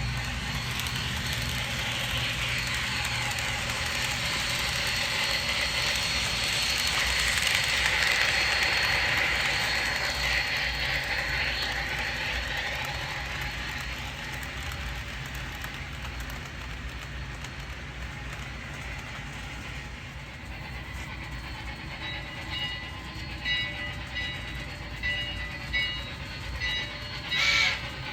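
HO scale model of a Milwaukee Road Class A Hiawatha 4-4-2 locomotive running on track, its rolling noise growing to a peak about eight seconds in and then easing off. From about twenty seconds in, short high tones start and stop, with a louder one near the end.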